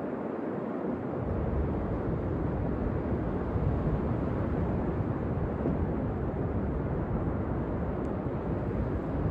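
Wind buffeting the microphone, a low rumble that comes in about a second in, over the steady wash of ocean surf.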